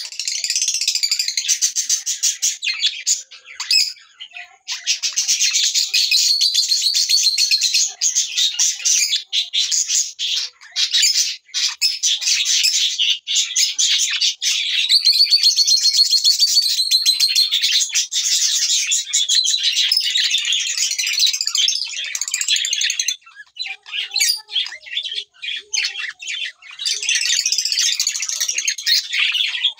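Lutino Fischer's lovebirds chattering: a fast, continuous, high-pitched stream of chirps and squeaks that breaks into short separate chirps for a few seconds past the middle, then runs on again near the end.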